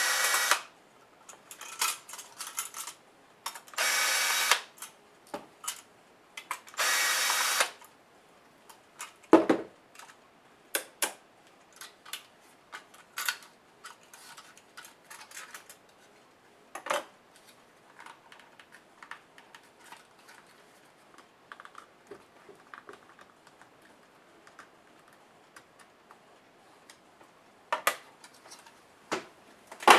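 Cordless drill-driver running in three short bursts, each under a second, backing small screws out of a laptop hard drive's caddy. Then scattered clicks and knocks of the drive and small plastic and metal parts being handled, with one heavier knock about nine seconds in.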